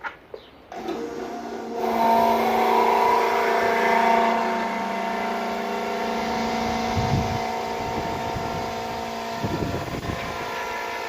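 A motor starts suddenly and runs steadily with a constant whine. It grows louder after about a second, and a few low thumps come in partway through.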